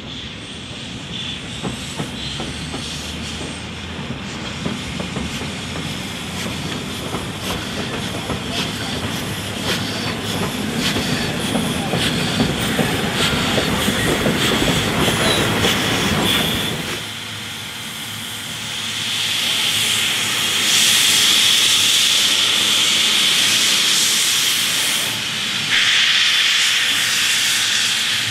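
NSWGR 32 class 4-6-0 steam locomotive 3237 running light, a low rumble with irregular clicks of wheels over rail joints that grows louder as it comes closer. About seventeen seconds in the rumble stops and a loud, steady hiss of steam from around the cylinders takes over, getting louder again near the end.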